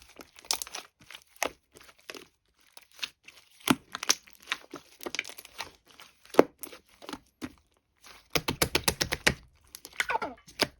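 Crisp crackling and crinkling as a crunchy, sticky material is pressed and pulled by hand, in scattered sharp crackles with a dense run of rapid crackles about eight and a half seconds in.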